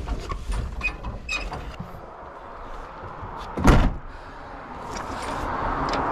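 A few small clicks and rattles, then a car door slams shut once, sharp and loud, about halfway through. Near the end a steady vehicle noise grows louder.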